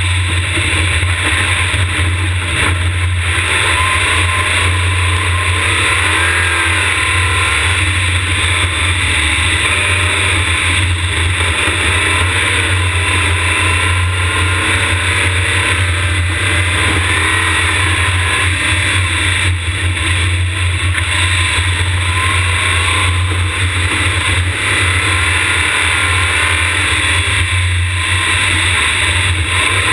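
Open-wheel race car's engine running hard at speed, its pitch rising and falling a few times with throttle and gear changes, under a steady loud low rumble on the car-mounted camera's microphone.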